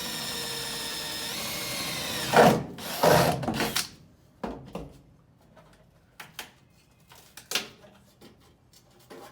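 Electric drill running, drilling guide holes in a rusted sheet-steel car floor pan. It runs steadily at first, speeds up slightly just over a second in, then gives a few loud, harsh bursts as it cuts through the metal before stopping. Scattered light taps and clicks follow.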